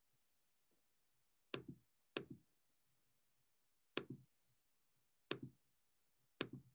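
Five sharp clicks, spaced unevenly, each followed at once by one or two softer clicks, against a near-silent room.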